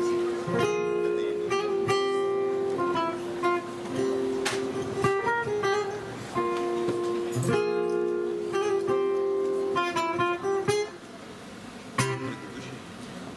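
Acoustic guitar playing alone, picking a melody over sustained notes with occasional strummed chords, as the introduction to a Macedonian folk song. It grows softer about a second before a strummed chord near the end.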